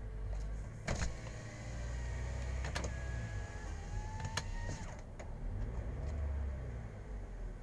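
Car engine running, heard from inside the cabin as a steady low rumble. From about a second in, a whine rises slowly in pitch and stops about five seconds in, with three sharp clicks along the way.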